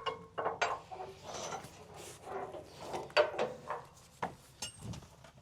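A series of irregular clanks, clicks and rubbing from cargo tie-down straps and their metal buckles being handled and thrown off a truckload.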